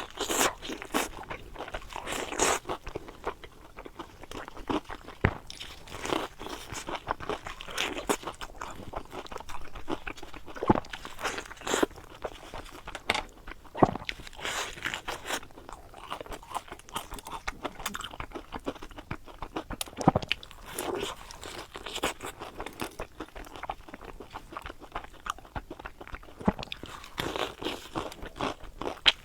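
Close-miked crunching and chewing of deep-fried eggplant sandwiches (炸茄盒), the crisp batter crackling with each bite, in irregular bursts.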